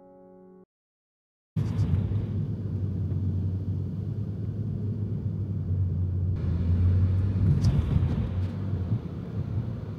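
Steady low rumble of a car in motion, road and engine noise, starting suddenly about a second and a half in after a brief silence.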